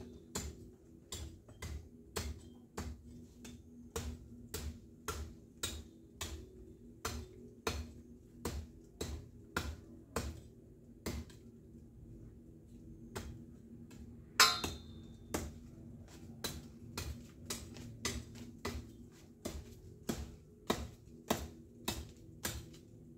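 A long run of sharp clicks, about two a second, pausing for about two seconds near the middle, with one louder snap about fourteen seconds in, over a faint steady low hum.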